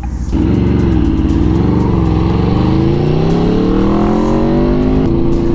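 Aprilia RSV4 1100 Factory's V4 engine through an SC Project SC1-R exhaust, heard from the rider's seat. The revs waver for a couple of seconds, then climb steadily for about three seconds under acceleration.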